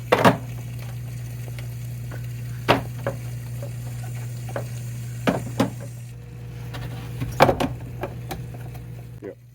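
Plastic pool filter cartridges knocking and clunking as they are set into the filter housing, a few separate knocks over a steady low hum and faint hiss.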